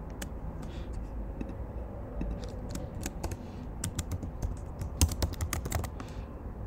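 Typing on a computer keyboard: scattered keystroke clicks, with a quicker run of keys about five seconds in.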